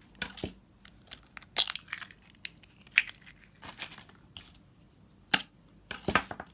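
Eggshells cracking and being pried apart over a bowl as two eggs are broken in. There are scattered short crackles and clicks, and one sharp crack a little after five seconds.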